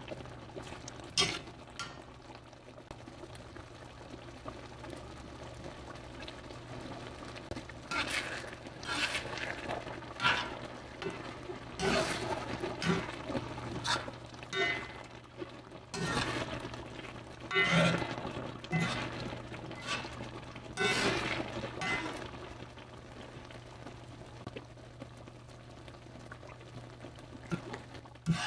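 A metal spoon stirring thick tomato-and-egg sauce in an enamelled cast iron wok: wet sloshing and spoon scrapes against the pan in irregular bouts, busiest in the middle stretch, over a steady low hum.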